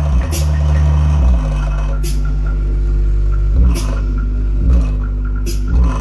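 Bass-heavy music playing through a JBL soundbar and subwoofer in a bass test. Deep sustained bass notes change pitch every second or so, with occasional sharp percussive hits.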